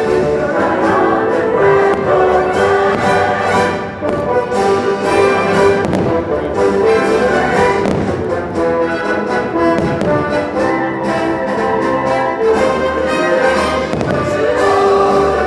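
Orchestral show music with brass playing, with fireworks going off over it.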